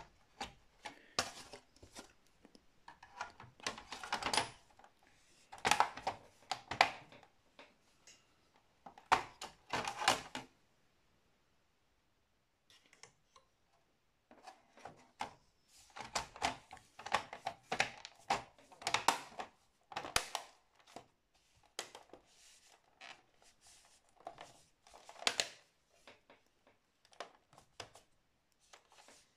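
Plastic back panel of an Acer Aspire C24 all-in-one PC being fitted back onto the chassis and pressed into place by hand: clusters of clicks, knocks and scraping, with a pause of a few seconds about a third of the way in.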